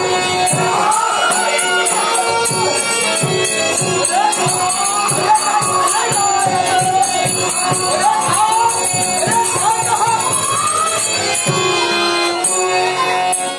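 Live accompaniment for a Dashavatar folk-theatre dance: a steady drone under a sung melody, with a regular drum beat and continuous jingling metal percussion. The music breaks off at the very end.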